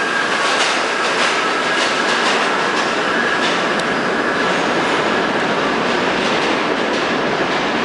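Westinghouse R68 subway train pulling out of the station into the tunnel, its traction motors howling with a steady high whine over the loud, even roar of the wheels on the rails.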